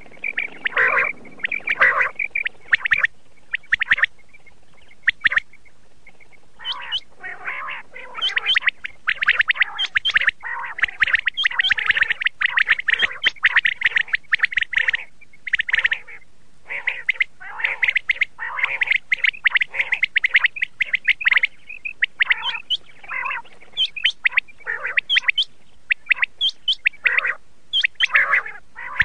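Common quail calling: clusters of quick, short high notes repeated in bursts with brief gaps.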